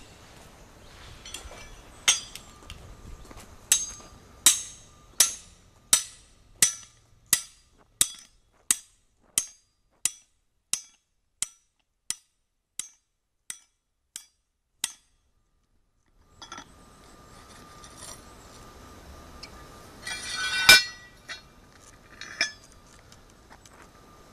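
Sledgehammer striking a steel drive pin through its guide plate into fresh asphalt, a steady run of about eighteen sharp metallic blows, one every 0.7 seconds or so, growing fainter as the pin goes in: punching the access hole for a nuclear density gauge's direct-transmission probe. A single loud metallic clank comes several seconds after the hammering stops.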